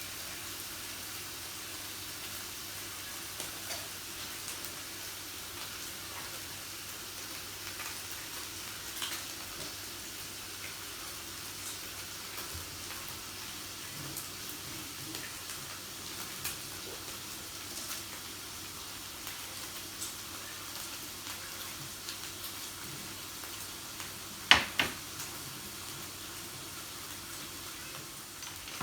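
Meat sizzling steadily on a yakiniku grill, with scattered faint clicks and two sharp knocks in quick succession near the end.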